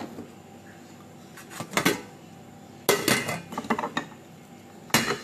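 Metal spoon clinking and scraping against a stainless steel mixing bowl and dishes, in three short bursts.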